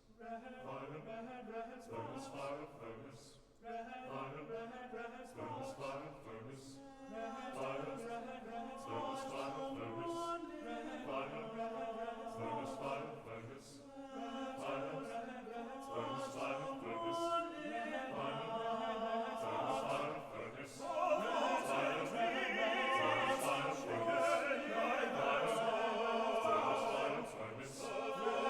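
Men's tenor-bass chorus singing sustained chords over a low note that repeats about every second and a half. The singing swells markedly louder about three-quarters of the way through.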